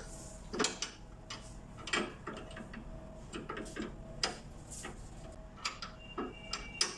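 Open-end spanner clicking and tapping against a nut and the iron frame of a sewing-machine treadle stand as it is fitted and worked: irregular sharp metallic clicks, a quick cluster a little after three seconds, and a ringing note starting near the end.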